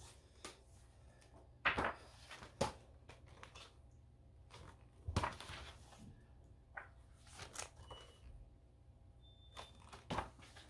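Paper and card being handled: scattered rustles and several soft knocks, the loudest about two, two and a half and five seconds in and again near the end, as an album photobook and its inserts are moved and opened.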